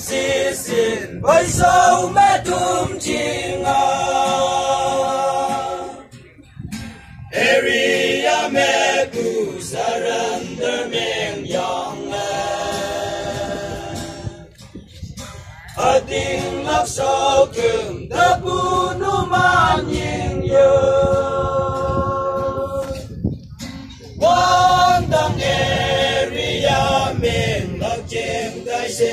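A group of voices singing a song together as a choir, in long sung phrases with held notes. Brief pauses for breath come about six, fifteen and twenty-three seconds in.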